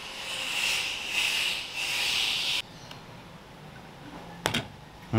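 A kitchen knife cutting and scraping through a worn rubber handlebar grip, a rasping sound in a few rough strokes that stops abruptly about two and a half seconds in. A short sharp sound follows near the end.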